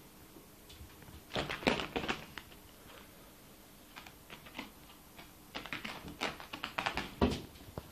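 A kitten's claws scrabbling and catching on a carpet-covered door as it leaps up and climbs it: two bursts of quick scratchy taps, one about a second and a half in and another around six seconds in.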